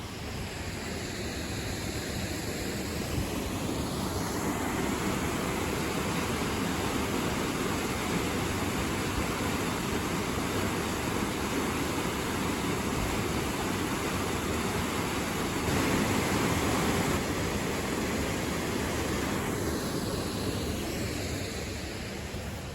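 Waterfall: the steady rush of falling water, swelling a few seconds in and easing off near the end.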